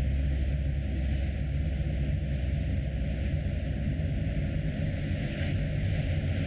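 A car driving along: a steady low rumble with a hiss of tyre and wind noise.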